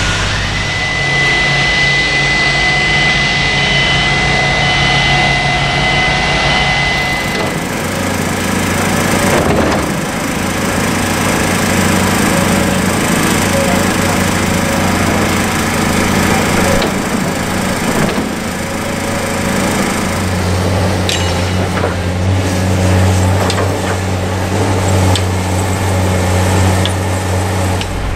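Heavy construction machinery running: a steady engine hum that changes character about seven and twenty seconds in, with a steady high whine over the first seven seconds and a few scattered knocks later.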